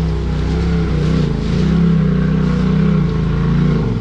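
Off-road vehicle engine running under load. The revs climb a little over a second in, hold higher, then drop near the end.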